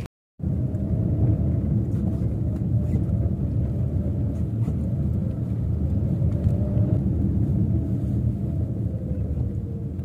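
A car's engine and road noise heard from inside the cabin while driving: a steady low rumble with a faint engine hum that slowly falls in pitch.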